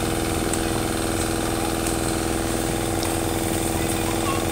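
A motor running steadily: a constant droning hum with one strong held pitch.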